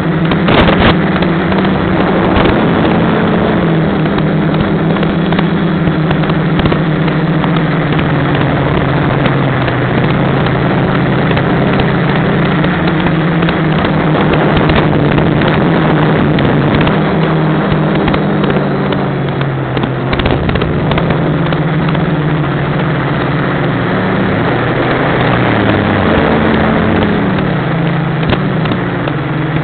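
The electric motors and propellers of a HobbyKing Deadcat quadcopter, heard close up from the onboard camera with a heavy rush of wind. Their hum shifts in pitch as the motor speed changes. Near the end it dips and climbs back.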